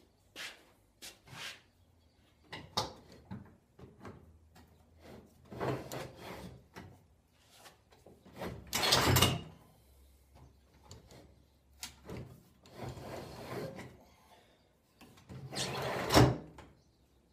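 Homemade pipe-clamp Moxon vise being worked: its wooden jaw slides along the clamp pipes in four strokes of about a second each, with clicks and knocks in between. This is the clamp's locking plates being tried after being regrooved so they catch on tightening.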